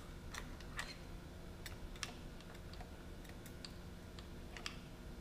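Light, irregular metal clicks and ticks of a screwdriver and feeler gauge against the breaker points and magneto plate of a vintage Johnson/Evinrude outboard, during setting of the point gap.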